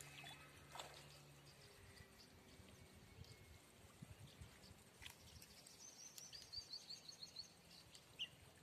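Faint outdoor ambience with a bird giving a quick trill of high repeated notes about six seconds in. A faint low hum fades out in the first second and a half.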